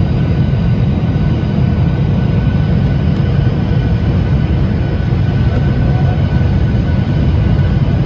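Steady cabin noise of a Boeing 737-800 on final approach, heard from a window seat over the wing: a deep, even rumble of airflow and CFM56-7B engines, with a faint steady whine on top.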